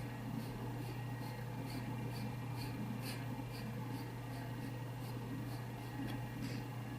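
Oil-paint brush scrubbing back and forth on canvas at about two strokes a second, rubbing in a thin orange glaze with almost no thinner. A steady low hum runs underneath.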